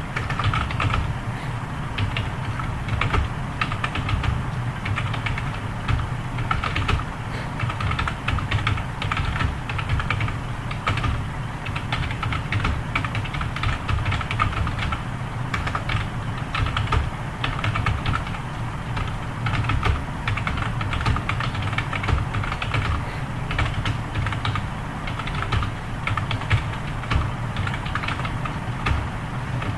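Fast, continuous typing on a computer keyboard, a steady stream of irregular key clicks with a few louder strokes, over a faint steady low hum.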